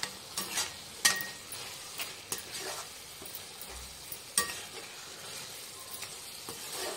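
Metal slotted spoon stirring and scraping minced meat and chopped tomatoes in a frying pan, with a low sizzle of the frying mixture underneath. The spoon's strokes come irregularly, a handful of sharp scrapes against the pan.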